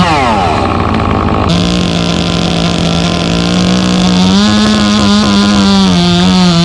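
Chainsaw engine revving in quick repeated blips, then held at a steady high rev that rises a little in pitch about halfway and wavers near the end, as when the saw is under load in a cut.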